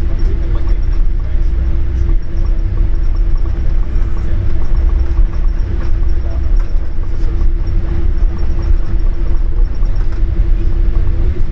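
Boeing 787-8 cabin noise on the ground before takeoff: a loud, steady low rumble with a constant hum underneath and faint scattered ticks.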